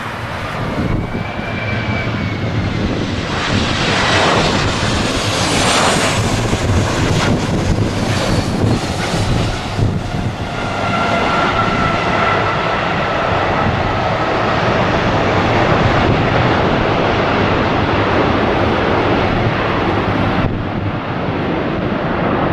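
Boeing 737-800 jet airliner's CFM56 engines running loud and steady as it lands. A few seconds in, the pitch sweeps as the aircraft passes; about ten seconds in the sound grows louder, with a high engine whine that slowly falls.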